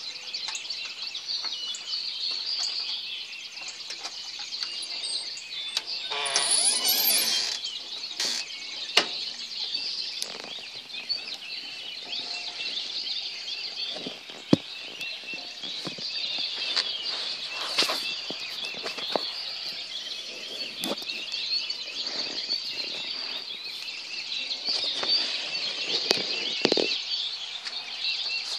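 Dense pre-dawn chorus of many birds chirping at once: a continuous high twittering with no pause. A louder rushing noise swells briefly about six seconds in.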